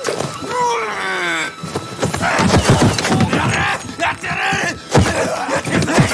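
Action-film fight soundtrack: a man's groan falling in pitch about half a second in, then music with a run of sharp hits and thuds, and a hard bang about five seconds in.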